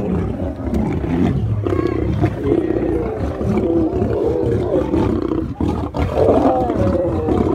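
Several lions roaring together, their long calls overlapping and rising and falling. The chorus swells louder near the end.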